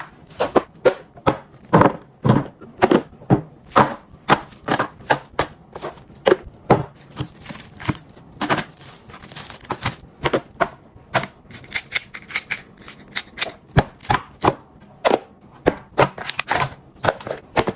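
Kitchen items being handled: an irregular run of sharp knocks and clicks, two or three a second.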